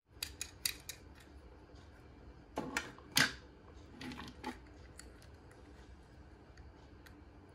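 Die-cast toy cars being handled on a table: light clicks, then a cluster of louder clicks and knocks about three seconds in as the cars are set down and picked up among the others. A few softer ticks follow.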